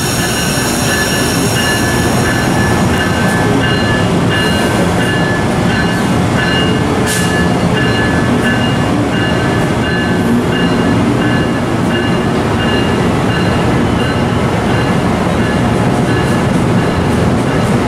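Amtrak Keystone Service electric train running close by on the Northeast Corridor tracks: a loud, steady rumble of wheels on rail with several steady high-pitched whining tones over it.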